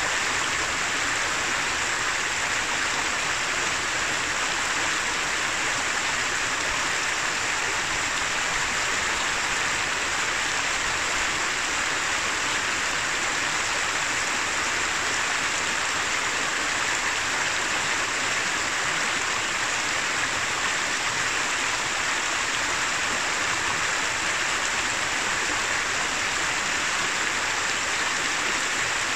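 Shallow mountain river running over a rocky bed: a steady, even babble and rush of water.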